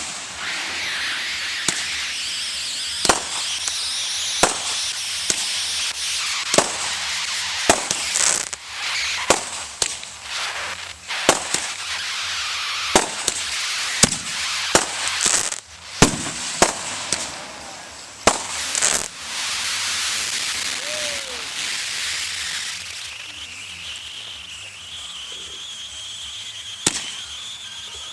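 Aerial fireworks display: a rapid string of sharp shell bursts, about one a second or faster, over continuous crackling and hissing from the effects.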